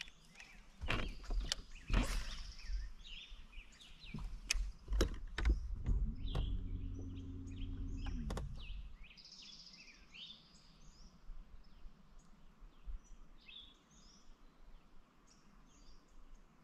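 Small birds chirping and calling repeatedly through the second half. Sharp knocks and clicks fill the first few seconds, and about six seconds in a bow-mounted electric trolling motor hums steadily for about two seconds, then cuts off.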